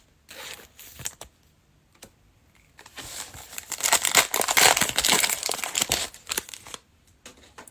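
Plastic trading-card pack wrapper being torn open and crinkled in the hands, a dense stretch of crinkling starting about three seconds in and lasting some four seconds, with lighter rustles of handling before it.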